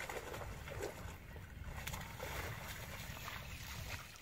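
Water sloshing and splashing irregularly in shallow water, a run of small splashes that dies down at the end.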